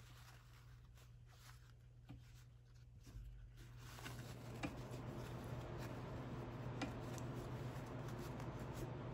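Cotton fabric and thread rustling and scratching as they are handled and pulled by hand, with scattered small clicks, over a steady low hum. The rustling gets louder and denser about four seconds in.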